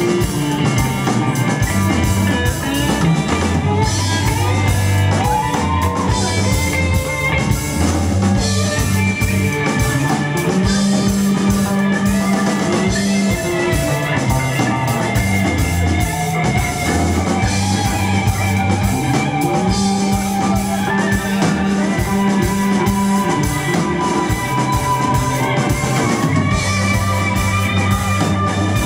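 Live rock band playing an instrumental passage: electric guitar lines with bent notes over a walking electric bass, a busy drum kit and keyboard.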